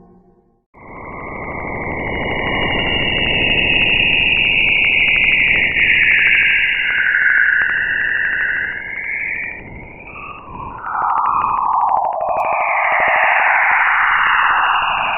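Space sound from the Jupiter system, a spacecraft radio recording turned into audio: a steady hiss with whistling tones that sweep up and down, starting about a second in.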